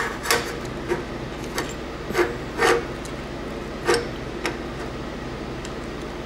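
Small steel parts knocking and scraping against each other and the steel table as they are set in place and squared up by hand, about seven light knocks in the first four seconds, then only a steady low hum.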